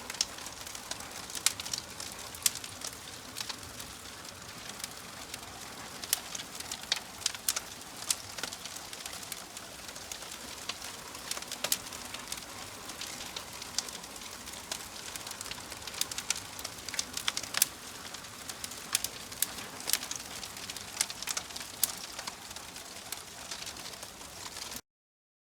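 Wood fire burning with a steady hiss and frequent sharp crackles. It cuts off abruptly near the end.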